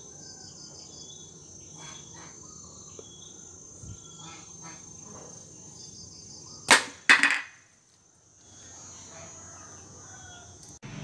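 A homemade twig-and-rubber-band slingshot is shot at a snack can. Two sharp cracks come about half a second apart, about two-thirds of the way in: the band's snap on release, then the shot striking the can and knocking it over on the tile floor.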